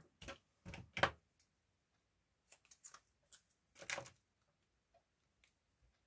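Light clicks and taps from hands turning over and handling a small piece of card on a cutting mat, a handful of scattered ticks with the sharpest about a second in.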